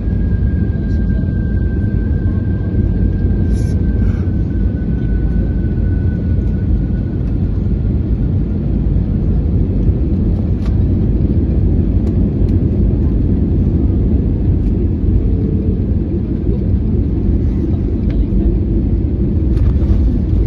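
Cabin noise of an Airbus A321neo with Pratt & Whitney PW1100G geared turbofans on final approach: a steady rumble of the engines and airflow. Over it, a faint high whine slowly falls in pitch and fades over the first several seconds. A few faint clicks come near the end.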